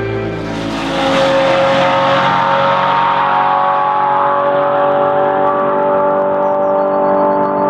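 A 1970s Lola sports-racing car's engine running at high, nearly steady revs, after a rush of noise in the first second.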